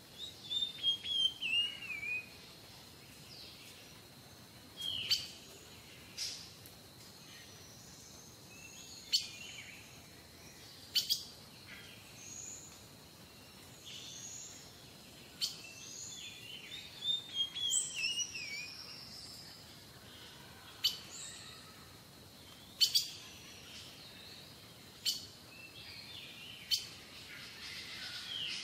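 Small songbirds chirping and calling: a quick descending run of notes just after the start and again about 17 seconds in, with sharp single chirps scattered between.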